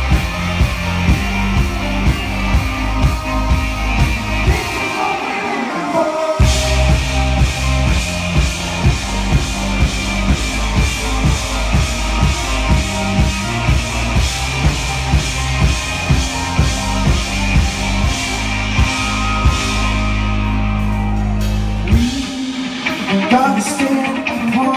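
Live rock band playing loud: drum kit keeping a steady beat under bass guitar and keyboards. The bass and drums drop out briefly about five seconds in, and again about three seconds before the end, leaving the higher parts playing.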